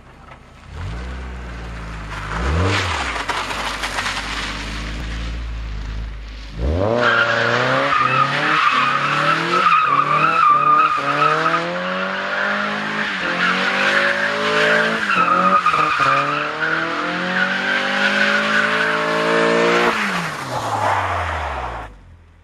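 Mazda Miata's 1.8-litre four-cylinder through a Yonaka catback exhaust, revving hard while the rear tyres skid and squeal. The revs climb at first; from about seven seconds a continuous tyre squeal runs over engine revs that rise and fall again and again, until the revs drop and the sound fades near the end.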